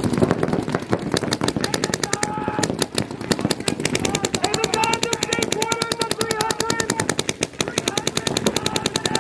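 Paintball markers firing in rapid, near-continuous strings of shots, a fast rattle of pops with many shots a second.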